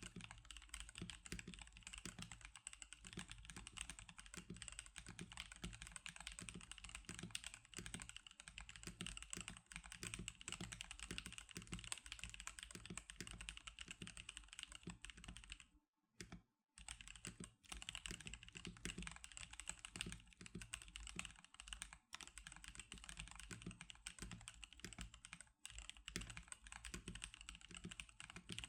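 Continuous fast typing on a NovelKeys NK87 mechanical keyboard (Atomic Purple) fitted with Magic Girl keycaps: a dense stream of key presses, with one brief pause about halfway through.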